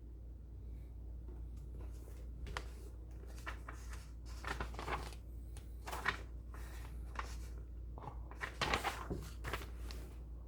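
Desk handling sounds: irregular short scratches, rustles and small knocks, clustered around the middle and near the end, over a steady low hum.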